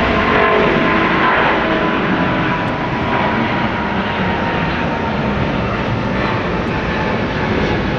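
Rolls-Royce Trent 1000 turbofans of a Boeing 787-9 taxiing: a steady jet rush with a thin whine, easing slightly as the airliner moves past.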